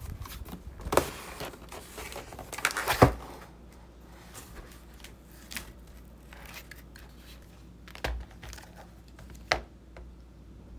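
Packaging being torn open and crinkled, with rustling and tearing noises over the first few seconds, then two light knocks from the box or keyboard being handled.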